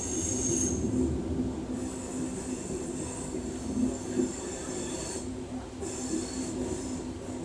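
Steel train wheels squealing in several high-pitched stretches over the steady rumble of a loaded coal train's cars rolling past close by.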